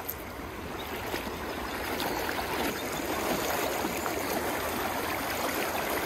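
Shallow river water rushing and splashing around legs as someone wades through it, growing steadily louder.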